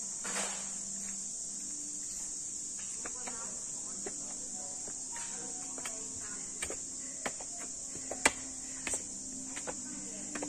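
Steady high-pitched chorus of insects, with scattered light clicks and taps, the loudest a little after eight seconds in.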